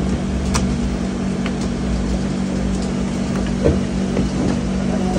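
Commercial dough mixer's electric motor running with a steady hum as its hook turns through flour and dough, with a few light clicks and taps over it.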